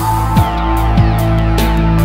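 Background music: an electronic-sounding track with sustained chords, regular drum hits and deep falling bass sweeps.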